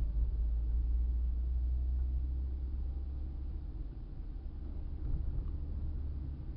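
Low, steady rumble of a car's engine and tyres heard from inside the cabin while driving, a little louder in the first few seconds.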